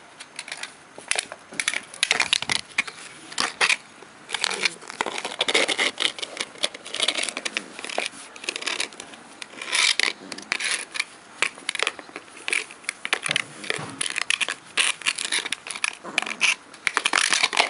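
A puppy dragging and knocking a thin plastic plant pot across concrete paving stones: irregular crackling, scraping and clattering of the plastic on the stone.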